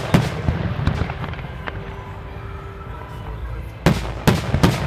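Aerial fireworks shells bursting in loud bangs: a few in the first second, then a quick cluster of three or four about four seconds in, over a steady low rumble.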